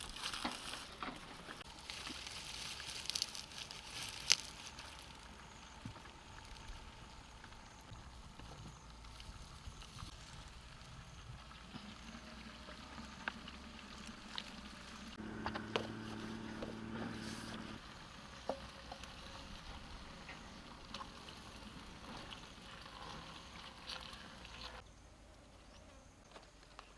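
An insect, such as a fly or bee, buzzing close by for about two and a half seconds a little past the middle, over faint background sound with scattered small clicks.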